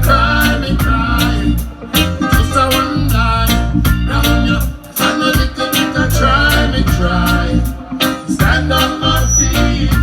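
Reggae music: a band playing with a heavy bass line and a steady drum beat, with a melodic line over it.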